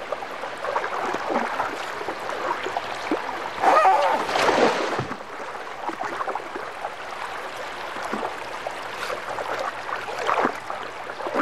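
River water splashing and churning as Asian elephants bathe and wade, with a louder surge of splashing about four seconds in.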